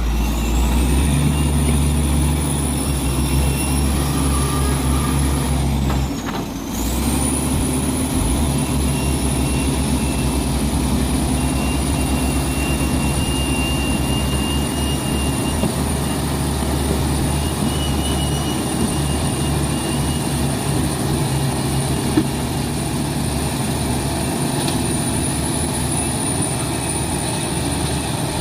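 Heavy diesel truck engine running steadily under load through mud. A high steady whistle rides over it; about six seconds in the whistle falls away and the sound briefly drops, then both come back up and hold.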